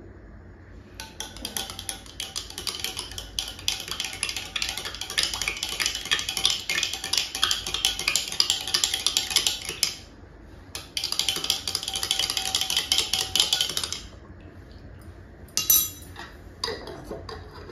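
A spoon stirring a drink, clinking rapidly and continuously against its container for about nine seconds, then again for about three seconds after a brief pause. A couple of separate clinks follow near the end.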